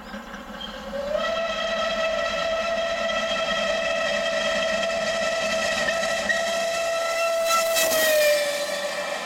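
Steam whistle of rebuilt Merchant Navy class locomotive 35028 Clan Line sounding one long continuous blast, starting about a second in and dipping slightly in pitch near the end, over the approaching train. A brief rush of noise comes shortly before the end.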